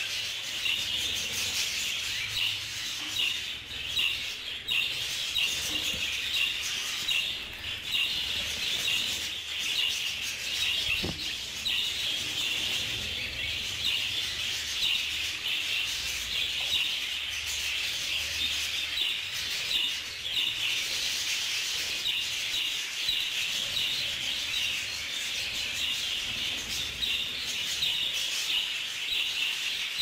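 A flock of budgerigars chattering steadily, a dense unbroken mix of chirps and warbles.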